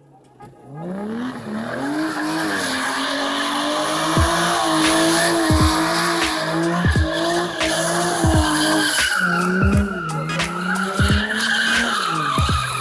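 Aston Martin engine held at high revs while its rear tyres spin and squeal in a smoky burnout. The engine note climbs about a second in and then holds steady, with the tyre squeal continuing over it.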